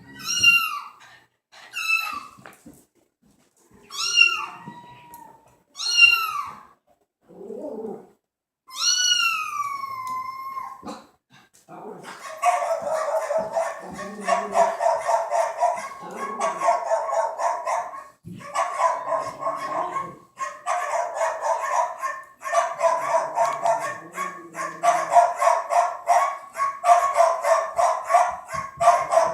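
Recorded cat meows played back as a sound effect: about five separate meows, the last one longer. They are followed, about twelve seconds in, by a recorded dog barking effect, rapid even yapping in bursts of about two seconds with short pauses between them.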